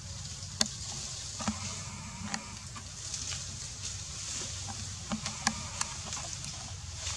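Outdoor ambience: a steady low rumble and a high hiss that swells and fades, with scattered sharp clicks and ticks.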